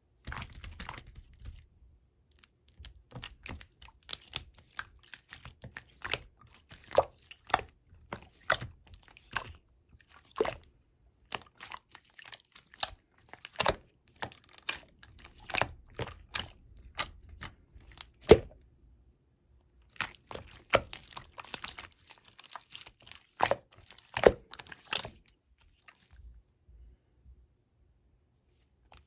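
Irregular crackling and crinkling handling sounds: sharp clicks in loose clusters, with a short pause in the middle, dying away near the end.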